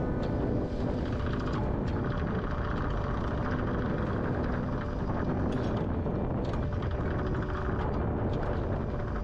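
Steady low rumble of wind buffeting the microphone aboard a small boat in choppy water.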